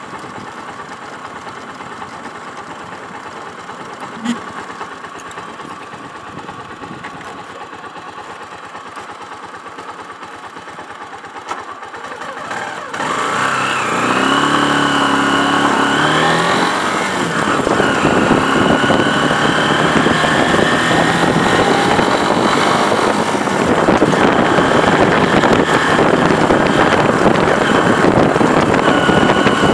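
Motorcycle engine, low and steady at first with a few short clicks. About 13 seconds in it gets louder and revs up. Its pitch rises, drops and climbs again, like a bike accelerating.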